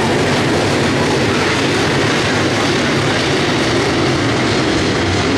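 A field of dirt late model race cars running together, their V8 engines making a loud, steady, dense engine noise with no break.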